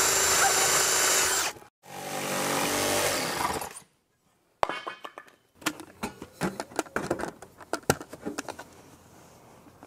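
Power drill running a long bit through a wall in two bursts, the second ending about four seconds in. After a short pause come scattered light clicks and knocks.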